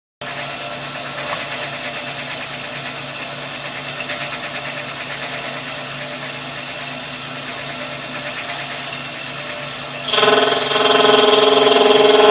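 Milling machine running with a steady mechanical whir and a fine rapid rattle. About ten seconds in it suddenly gets louder, with a strong whine: the machine's abnormal noise.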